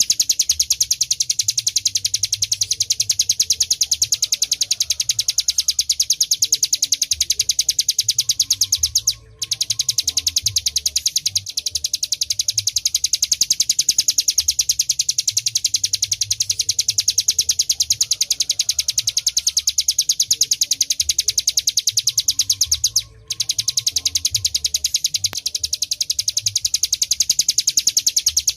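Ciblek gunung song: a long, fast, high-pitched trill of rapidly repeated notes, broken twice by a brief gap.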